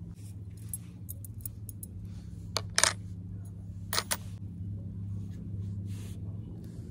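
Sharp metallic clinks of small metal objects knocking together: a few light ticks, then two loud clusters about a second apart near the middle. A steady low hum runs underneath.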